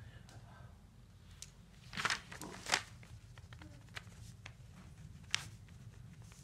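Low steady room hum with two brief rustling, crinkling sounds about two seconds in and a single sharp click later on, like small handling noises.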